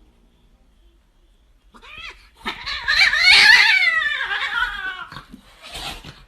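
A pet animal's drawn-out, quavering cry: a short call about two seconds in, then a long, loud wavering call whose pitch sinks toward its end, and a brief last call near the end.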